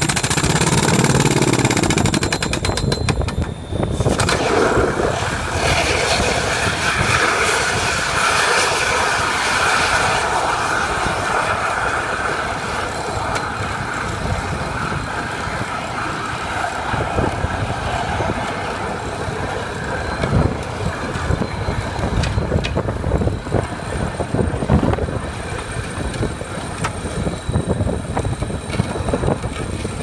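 Down-the-hole rock-drill hammer percussing into rock on a skid-steer-mounted MO57 drill: rapid hammering under a steady rush of compressed air blowing cuttings out of the hole, with engine noise underneath. The rapid hammering is densest in the first few seconds, breaks off briefly near four seconds, then runs on as steadier air noise with scattered knocks.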